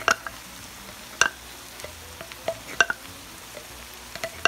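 Wooden spoon knocking and scraping queso out of a jar into a pan of browned ground beef: several sharp knocks spaced about a second apart, over a faint steady sizzle from the pan.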